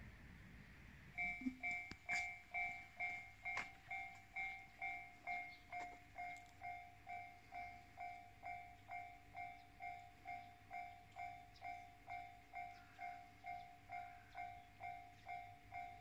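Japanese railway level-crossing warning bell starting about a second in: an electronic two-note ding repeating evenly about three times a second, the signal that a train is approaching and the crossing is closing.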